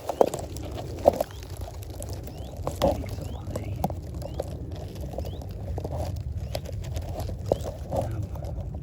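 Irregular rustling and crunching of footsteps moving through undergrowth, over a steady low rumble. Faint short rising chirps of a small bird come through repeatedly.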